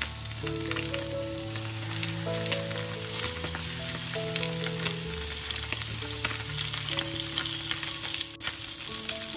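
Duck breasts frying skin-side down in hot oil in a frying pan: a steady sizzle with many small crackles of spitting fat. Soft background music with held notes plays underneath.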